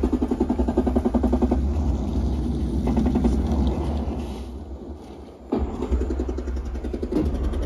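Video-game sound played through an Onn 5.1.2 Dolby Atmos soundbar and subwoofer: a fast rattling rhythm over deep bass, which eases off in the middle and comes back sharply about five and a half seconds in.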